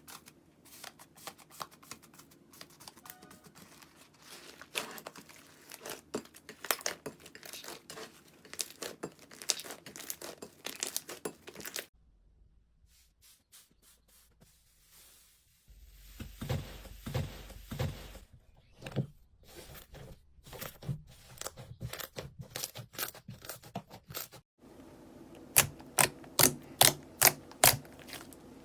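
Slime being squeezed and poked in a run of short clips, crackling and clicking densely. After a quieter stretch in the middle, a run of sharp, regular pops comes near the end, about two or three a second.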